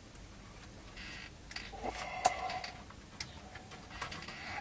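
Light clicks and rustles of wires and a small plastic wire connector being worked onto a CRT monitor's circuit board, with one sharper click a little past halfway.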